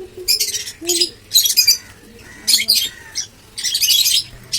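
African lovebirds chattering, with about five or six bursts of shrill chirps and squawks in quick succession.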